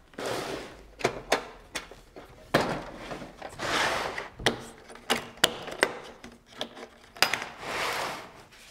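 Tool packaging and cases being handled on a wooden workbench: plastic blister packaging rustling, and plastic and metal tool cases scraping and being moved, with several sharp clicks and knocks from the cases and their latches.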